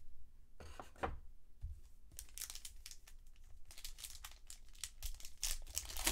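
Crinkling and tearing of a trading-card pack wrapper being opened by hand, with crackly rustling bursts through the latter part.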